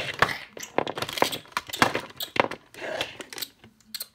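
A child's chomping and growling mouth noises for a toy tyrannosaurus gobbling up a crayon, mixed with irregular clicks and rustles of the plastic toy being handled.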